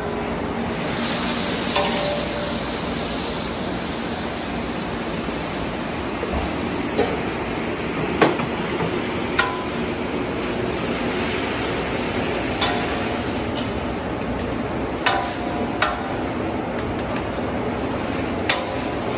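Chow mein frying on a large round flat-top griddle: a steady sizzle, broken now and then by sharp clacks as the long metal spatula strikes and scrapes the hot steel, about eight of them spread unevenly.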